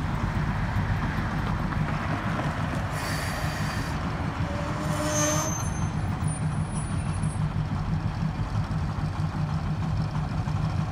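Small diesel switcher locomotive's engine running as it creeps toward the crossing, a steady low rumble. About three seconds in comes a brief higher hiss with faint squealing tones, lasting a couple of seconds.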